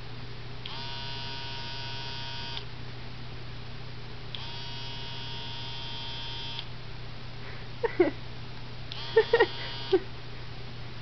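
Electric razor buzzing in three bursts of about two seconds each as it is switched on and off, over a steady low hum. Near the end, a few short, loud squeaks that drop in pitch.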